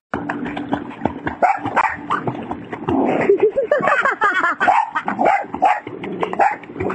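A small dog barking and yipping over and over, with water splashing around it.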